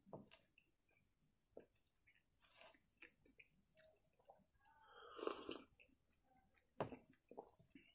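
Faint close-miked drinking sounds: a person sipping a milky drink from a glass, with one louder gulp about five seconds in and a sharp click near the end.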